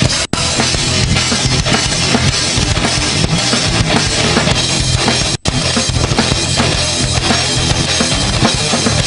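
Programme's closing music with a drum-kit beat: bass drum, snare and cymbals. It drops out for an instant twice.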